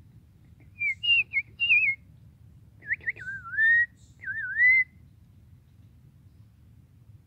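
Loud, clear whistled notes: a quick run of short gliding notes, then two longer swooping, wavering phrases, over a faint steady forest background.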